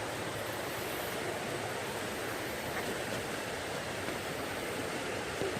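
Steady rush of flowing floodwater, an even hiss with no breaks.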